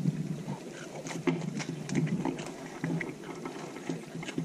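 Handling noise from a fishing rod, line and spinning reel being worked by hand: irregular clicks and rustles, some louder knocks, over a low rumble.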